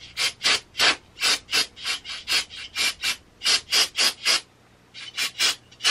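Quick short scrubbing strokes, about three to four a second, as cleaner is worked into the trigger area of a DeWALT 20V reciprocating saw, with a brief pause a little past four seconds in.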